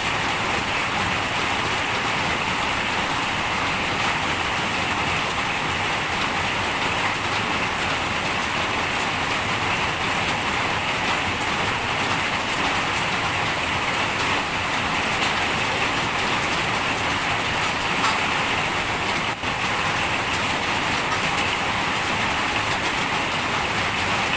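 Steady rain falling: an even, unbroken hiss of drops.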